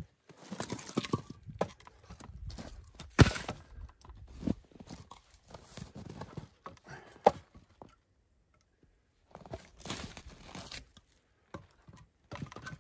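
Split firewood being picked up and laid crosswise on a log-cabin fire lay: knocks and clatters of wood on wood, with crunching and rustling between them. The loudest knock comes about three seconds in, another sharp one about seven seconds in, then a short lull.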